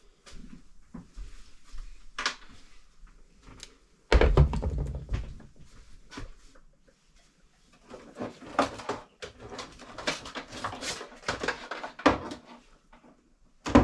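Knocks, clicks and rattles of a wall-mounted TV being handled and taken down. There is one heavy thump about four seconds in, and a quick run of clatter between about eight and twelve seconds.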